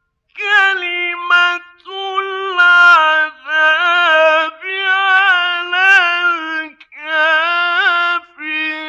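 A male Quran reciter chanting in the melodic mujawwad style: a high voice holding long, ornamented notes with a wavering vibrato, in several drawn-out phrases separated by brief breaths.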